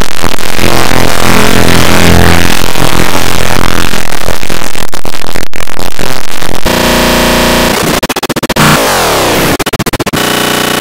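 Heavily distorted, very loud electronic music: a harsh, noisy wash that breaks about six and a half seconds in into stuttering, glitchy tones with pitch sweeps, then settles into a steady buzzing chord near the end.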